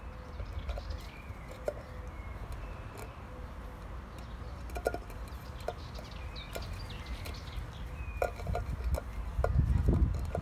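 Empty tin can being chewed and pawed by a Labrador puppy: scattered light metallic clicks and taps of teeth and claws on the can, with a louder low rustle about ten seconds in. Birds chirp in the background.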